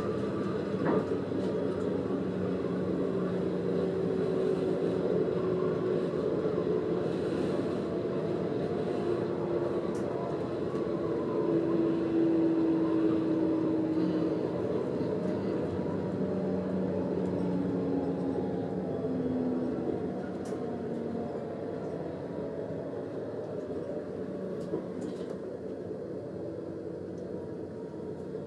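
A train running along the track, heard from the driver's cab: a steady running rumble with a drone that wavers in pitch. It eases off a little about two-thirds of the way through.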